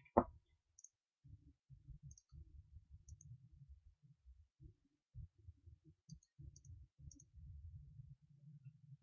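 Faint low rumbling in short patches with scattered tiny clicks, and one sharper knock just after the start.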